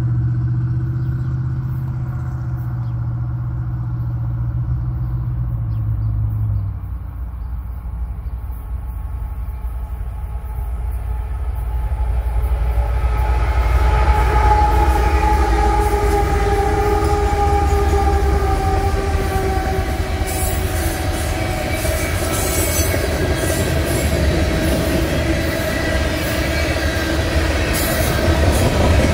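BNSF freight train with its diesel locomotives, a Tier 4 combination, approaching and passing: the engines grow louder from about twelve seconds in while the horn sounds, its chord falling slightly in pitch as the locomotives go by. Then the freight cars roll past with wheels clicking over the rail joints.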